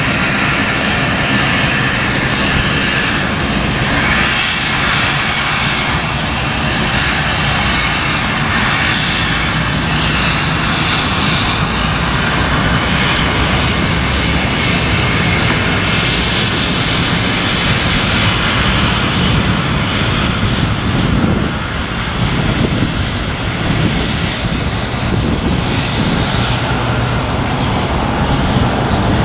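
An airliner's engines running, a loud steady roar with a faint high whine, dipping briefly about two-thirds of the way through.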